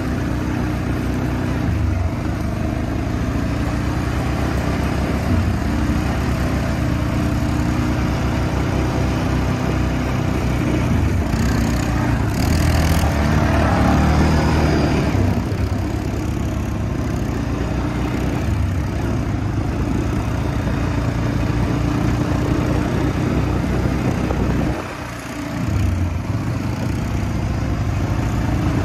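Kawasaki Prairie ATV's single-cylinder four-stroke engine running steadily while riding, with a short drop in level about 25 seconds in before it comes back up.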